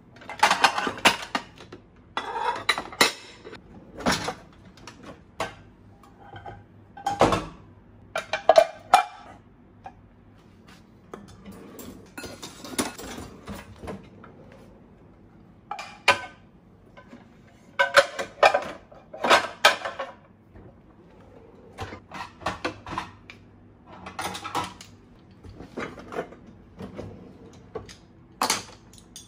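Ceramic plates and bowls clinking and knocking together as they are lifted out of a dishwasher rack and stacked, with some rattling of kitchen utensils. The clinks come in irregular clusters with short pauses between them.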